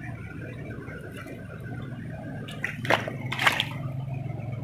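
Water splashing twice in quick succession, about three seconds in, as a mesh keep net holding caught fish is dipped into shallow stream water, over a steady background of flowing water.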